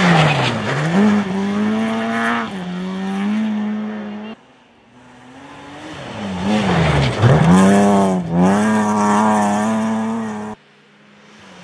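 Two rally cars pass one after the other on a snow-covered stage, first an Opel Astra hatchback and then a BMW 3 Series saloon. Each engine is revving hard, its note dipping sharply and climbing again as the driver lifts and changes gear. Each pass cuts off abruptly.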